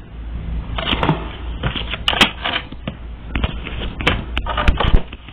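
A deck of reading cards being shuffled and handled by hand: an irregular run of sharp clicks, slaps and rustles.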